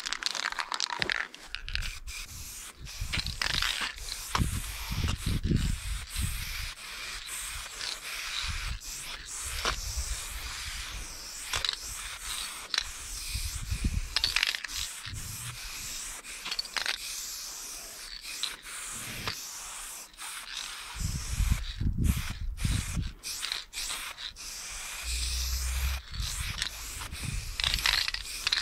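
Aerosol spray paint can hissing in repeated spurts as outlines are sprayed onto a concrete wall, with irregular low rumbles on the microphone.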